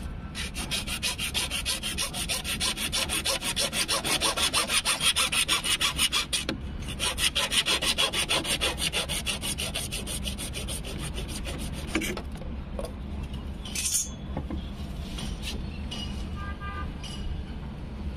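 Hacksaw blade sawing through a plastic PVC water pipe in rapid, even back-and-forth strokes. It pauses briefly about six seconds in and stops about ten seconds in, followed by a few light knocks.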